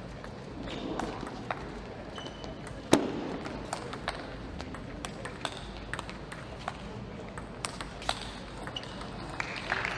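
Table tennis rally: the ball clicks sharply off rackets and the table about twice a second, with one much louder crack about three seconds in.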